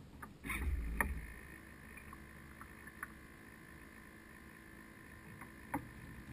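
Water sloshing against the wooden hull of a radio-controlled sailing yacht, heard close up from its deck, with a low buffet about half a second in and a few sharp knocks.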